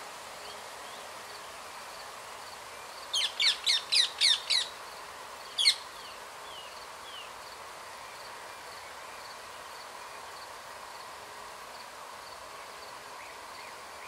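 Rose-ringed parakeet calling: a quick run of six shrill squawks about three seconds in, then one more a second later.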